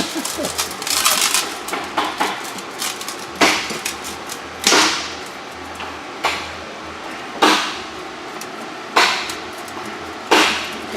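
A hammer striking metal six times at a slow, even pace, each blow ringing briefly, while new exhaust hangers are being fabricated. Lighter clattering and scraping of metal come first.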